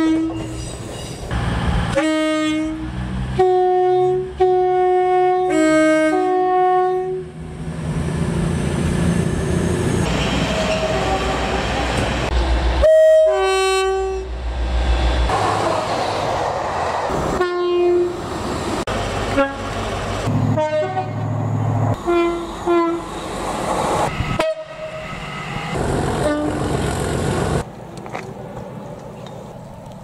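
Several British trains sounding two-tone horns, with short blasts alternating high and low notes, cut one after another. Between the horn blasts is the rumble of trains running through the station.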